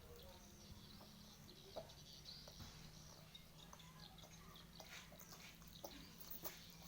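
Faint wet chewing and mouth clicks from someone eating crispy fried chicken, over a low steady hum.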